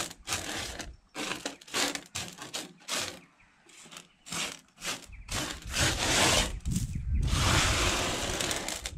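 Washed sapphire gravel swept by hand across a metal sorting table: a run of short scrapes and rattles of small stones on the metal, then a longer, louder continuous scrape over the last few seconds.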